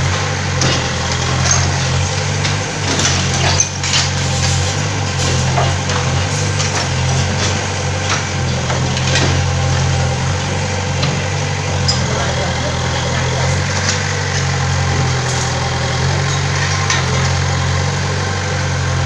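Mini excavator's diesel engine running steadily while its bucket works at brick walls, with scattered knocks and clatter of falling bricks and rubble.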